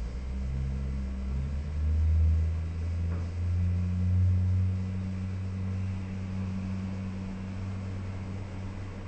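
Low engine rumble of a motor vehicle, swelling over the first few seconds and then slowly fading.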